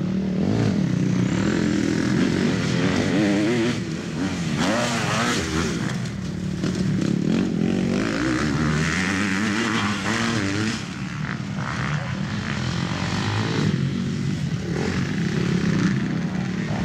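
Motocross bike engines revving hard, the pitch climbing and dropping again and again as the riders accelerate and shift through the gears.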